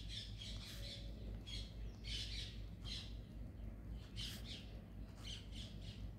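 Faint scratching of a pen on paper in short, irregular strokes as words are handwritten, over a low steady hum.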